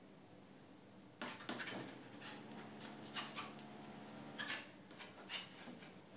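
Palette knife dabbing and scraping paint onto a canvas: a run of short, irregular scratchy strokes starting about a second in, with a faint steady hum underneath.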